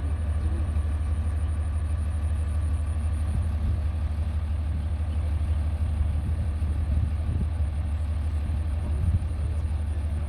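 A heavy machine's engine running steadily, a deep low rumble with no change in pace.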